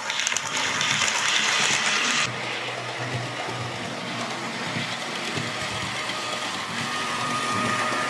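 Model train running on the layout's track with a hiss of wheels and motor. It is louder for about the first two seconds and again near the end as it passes close, over a faint steady whine.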